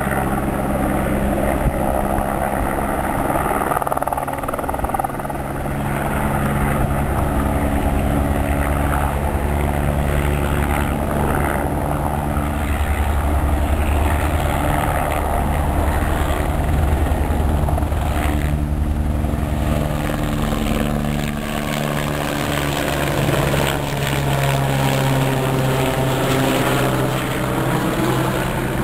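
Firefighting helicopter's rotor and engine running steadily as it hovers low with a water bucket slung beneath it and then flies off, the pitch of its hum shifting as it moves.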